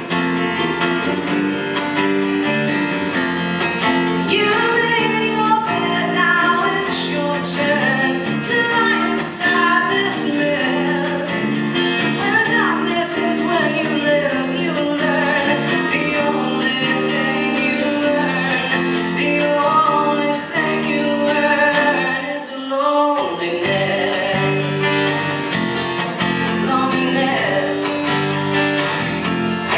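A live song: acoustic guitar strummed under a woman's singing voice. The music briefly thins out for a moment about three-quarters of the way through, then carries on.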